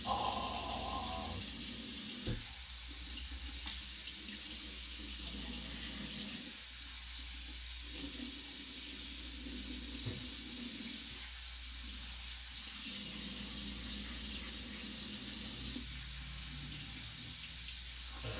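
Kitchen faucet running steadily, water splashing into the sink.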